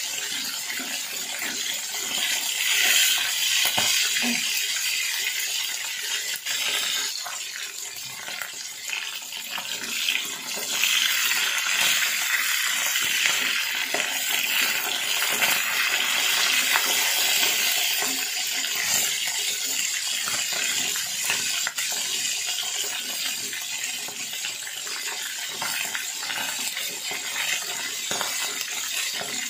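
Tulingan fish frying in hot oil in a pan, a continuous sizzle and crackle. A few short knocks and scrapes come from a wooden spatula turning the fish.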